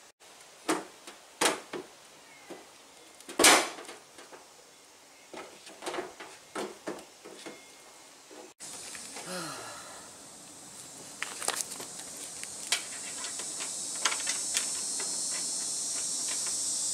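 Scattered clicks and knocks of a plastic aftermarket snorkel body being handled and pressed against a car's steel fender, the loudest knock about three and a half seconds in. From about halfway through, a steady high insect drone comes in and slowly grows, with more light clicks over it.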